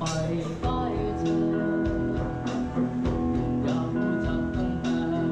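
Live amateur rock band playing a song: electric guitars, bass guitar, keyboard and drum kit, with a young male lead singer's voice.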